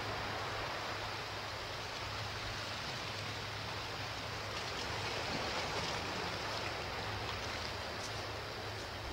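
Steady rushing noise with a faint low hum underneath, even throughout, rising slightly about halfway through.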